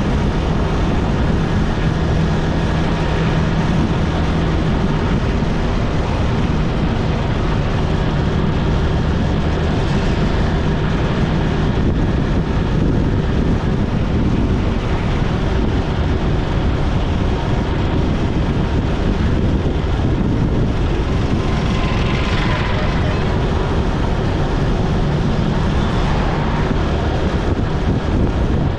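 Motorcycle engine running steadily at cruising speed, heard under constant wind and road noise, with a brief higher-pitched wavering sound about three quarters of the way through.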